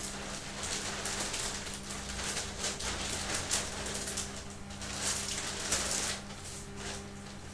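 Crinkling and rustling of a large plastic sheet being unfolded and spread over a cloth-wrapped leg, in irregular bursts. A faint steady low hum runs underneath.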